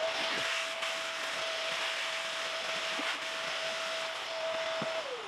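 Vacuum cleaner running with a steady whine over the rush of air, then switched off about five seconds in, its whine falling as the motor winds down.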